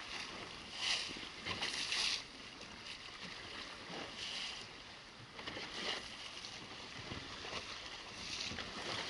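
Water rushing and splashing against the hull of a boat moving through choppy waves, with several louder surges of spray.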